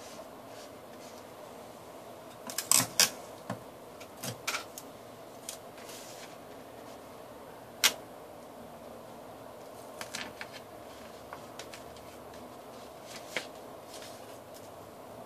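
Paper and tape being handled: scattered crinkles and light taps, a cluster of them about three seconds in and a single sharp click near eight seconds, over a faint steady hum.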